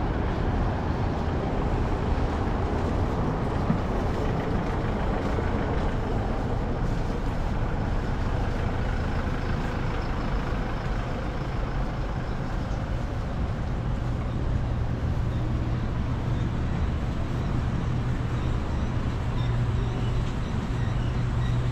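Road traffic along a city street: steady noise of vehicles running, with a low engine hum growing stronger about two-thirds of the way through as a vehicle runs close by.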